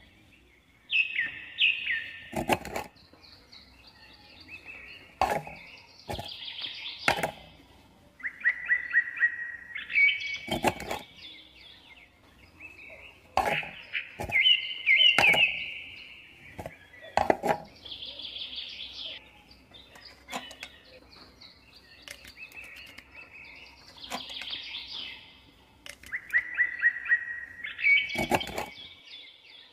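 Small birds chirping and trilling in repeated short phrases, with scattered sharp clicks and taps from small wooden sticks and parts being handled.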